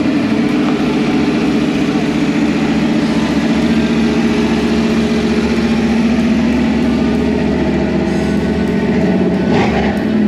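A car engine idling steadily and close by, with a short sharp rise in the sound about nine and a half seconds in.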